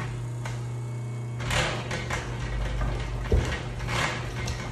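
Homemade 100 lb leaf-spring power hammer running with a steady motor hum while its ram strikes a wooden block held on the lower die. The blows come irregularly: a single knock early on, then quicker repeated blows from about a second and a half in, with one sharp loudest hit just past the middle.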